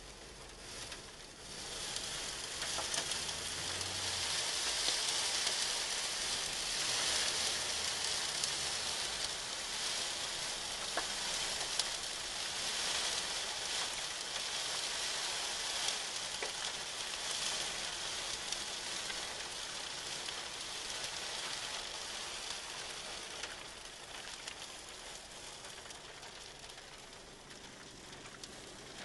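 Wind-blown sand hissing steadily against a vehicle in a sandstorm, rising about a second and a half in and easing off near the end.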